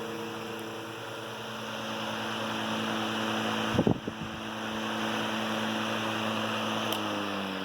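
Antique 1918 Emerson 19646 12-inch electric fan running on high, a steady hum with the rush of air from its blades, smooth and even with its new balanced blade set. A brief knock comes about halfway through, and near the end the pitch starts to fall as the fan slows down.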